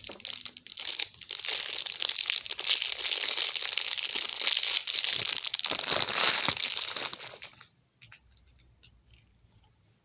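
Clear plastic wrapper crinkling and tearing as it is pulled off a small squishy stress ball, continuous for about seven and a half seconds, then stopping.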